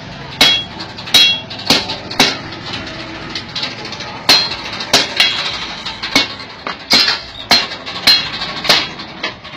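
Hand hammer striking a red-hot steel rod held in a steel swage block: about a dozen sharp, ringing metal-on-metal blows at an uneven pace, with a pause of about two seconds partway through.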